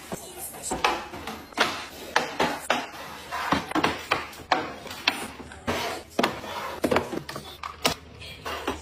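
Clear plastic organizer bins and cosmetic bottles and jars being set down and pushed into place on shelves, making sharp, irregular clacks and knocks, about two a second.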